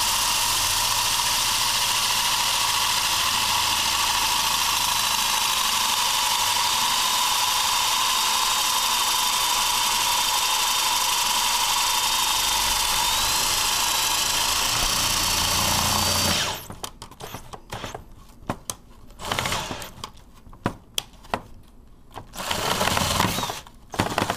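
Electric drill running steadily with a whine as it bores a hole through the plastic wall of an Otterbox case, stopping abruptly about two-thirds of the way through. Then scattered knocks and clicks, with a brief louder burst near the end.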